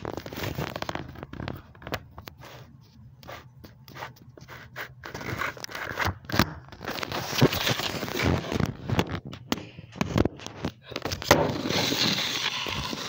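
Handling noise from a handheld phone: irregular scraping and rustling with many scattered clicks, quieter at first and louder and busier from about halfway in.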